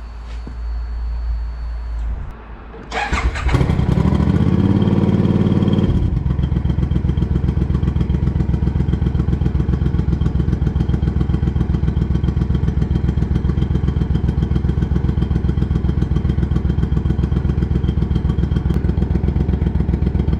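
2014 Triumph Speedmaster's parallel-twin engine turning over on the starter and catching about three seconds in. It runs louder for a couple of seconds, then settles into a steady, evenly pulsing idle, and cuts off just at the end. It starts now that the kill switch, which had kept it from starting, is set back to run.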